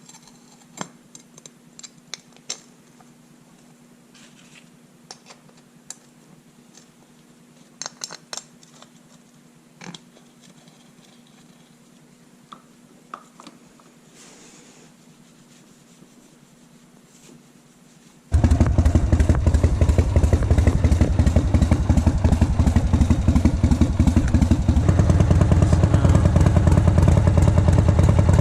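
Scattered light clicks and taps of tools and parts, then the 1988 Harley-Davidson FXRS's Evolution V-twin running loud from about two-thirds of the way in, its beat changing slightly a few seconds before the end.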